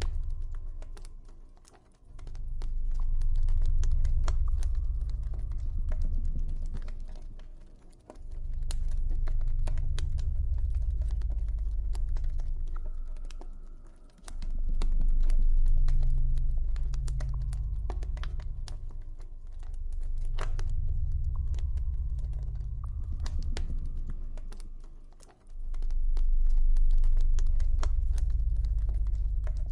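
Campfire crackling, with frequent sharp pops and snaps, over a deep ambient drone that swells up and fades away about every six seconds.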